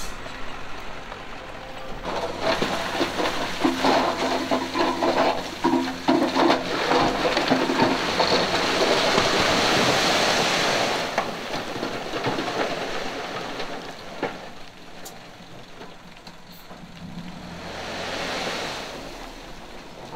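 Loose stone fill sliding and tumbling out in a long rushing pour, building over several seconds and loudest about eight to eleven seconds in, with a heavy machine's engine running under it; a smaller rush of stone comes near the end.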